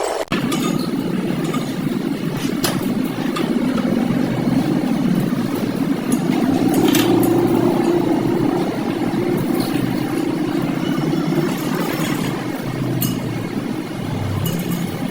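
A machine running steadily, with a few sharp metallic clicks or knocks scattered through it.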